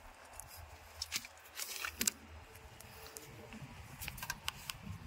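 Scattered light clicks and taps of a new camshaft position sensor being pushed into its seat on the engine and its retaining nut fitted, the loudest tap about two seconds in.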